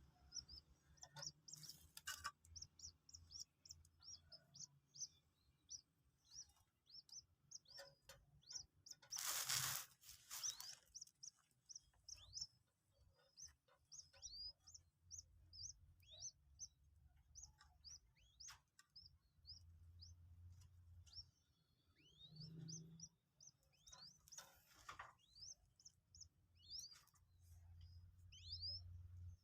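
Common moorhen chick peeping: a long run of short, high, thin cheeps, some sliding down in pitch, coming several a second at times. A brief louder rustling noise cuts across about ten seconds in.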